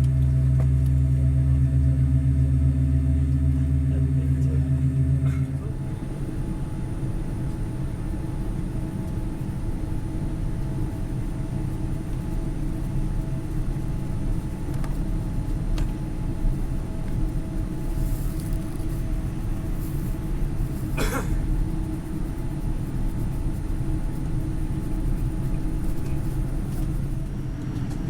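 Airliner cabin noise on a Boeing 787-9: a steady, strong low hum that gives way about five seconds in to a quieter, rougher rumble with a few faint steady tones, which then holds evenly.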